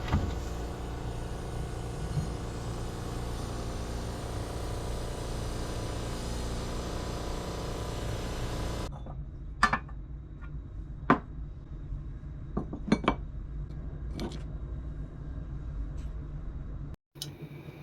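A steady mechanical running noise with a low hum that stops abruptly about halfway through, followed by a handful of sharp, light clinks and taps at irregular intervals in a quieter workshop.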